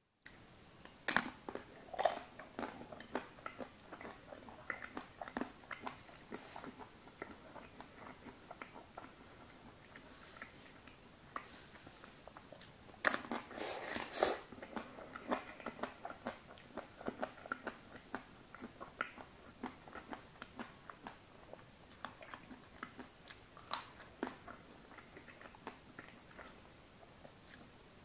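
Close-miked biting and chewing of a Nutella-spread Magnum chocolate-coated ice cream bar, the chocolate shell crunching and crackling in irregular bites. The loudest burst of crunching comes about halfway.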